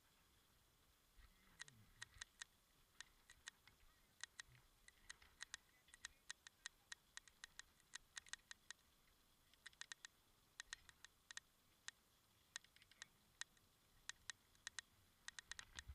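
Faint, irregular sharp clicks, a few per second, over a quiet background hiss.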